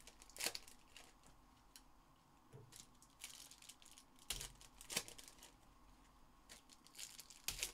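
Foil trading-card pack wrappers being torn open and crinkled by hand: faint, scattered crackles with a few sharper rips.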